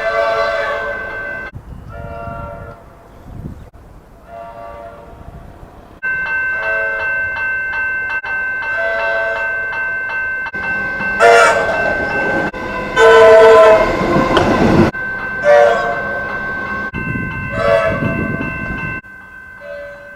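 Comeng electric trains sounding their horns: a string of about nine short blasts, each a chord of several pitches, with the loudest two past the middle. A steady high whine runs under most of the second half.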